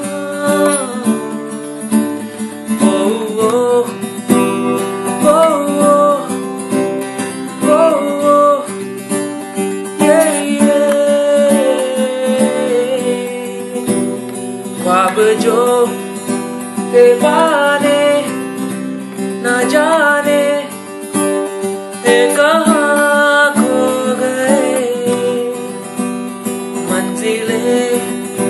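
Music: an instrumental passage led by acoustic guitar, with a gliding melody line on top.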